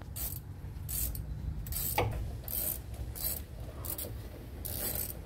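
Hand ratchet wrench clicking in a run of strokes, about one every half second to second, as it turns a brake caliper hex bolt on a pickup's front brake.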